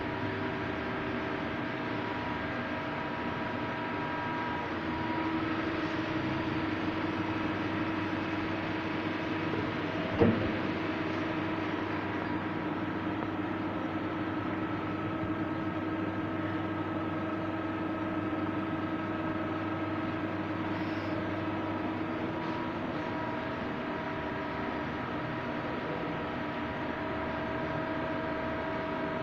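Star RNC-16 Swiss-type CNC lathe running through a machining cycle: a steady mechanical hum with several steady motor tones, some of which come in and drop out as spindle and tool speeds change. A single sharp knock about ten seconds in.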